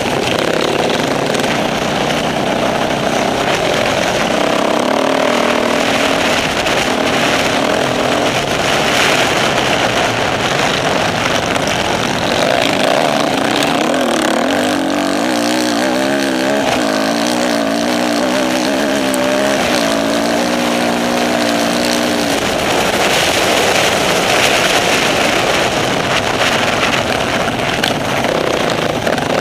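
Off-road motorcycle engine running hard under load, its pitch rising and falling as the throttle is worked, wavering most in the middle of the stretch.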